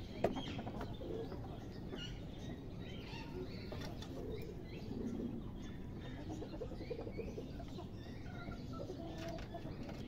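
Several caged birds chirping over and over in short calls, with some lower calls mixed in. A single sharp knock comes just after the start.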